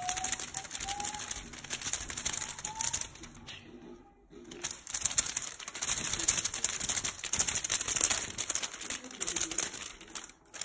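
Feather wand cat toy with shiny streamers rustling in quick, crackly swells as it is waved and swatted at, loudest in the middle and later seconds. A thin, slowly rising tone sounds faintly during the first few seconds.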